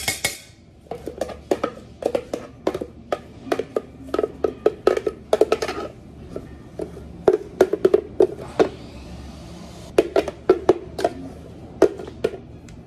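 Plastic blender jug knocked and tapped as a spoon scrapes thick blended frappe out of it into a cup: a string of sharp, irregular hollow knocks in clusters, over a faint steady low hum.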